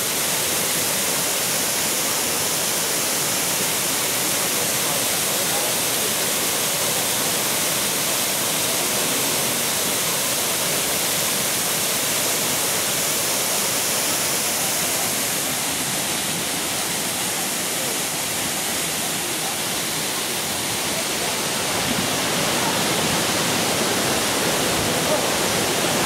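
Waterfall: a steady, even rush of falling water, a little louder in the last few seconds.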